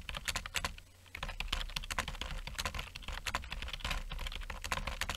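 Computer keyboard typing: rapid, irregular key clicks over a low steady hum.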